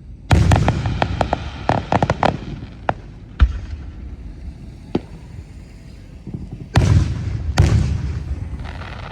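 Fireworks going off: a loud bang followed by a quick run of crackling reports for about two seconds, a few scattered single bangs, then two more loud bursts near the end that fade out slowly.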